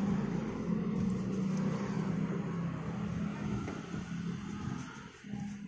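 Steady hum of a motor engine, fading away near the end.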